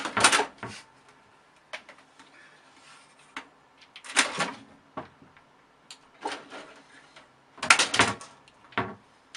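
A cat's claws scrabbling and scraping against the side of a computer tower case as it tries to climb it and slips back, in irregular bursts of scratching and bumps; the loudest bursts come at the start and about eight seconds in.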